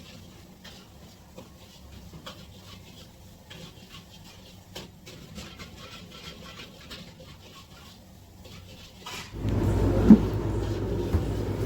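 A kitchen knife slicing vegetables on a chopping board: faint, irregular taps and cuts. About nine seconds in, a much louder steady low hum starts, with a single short knock a second later.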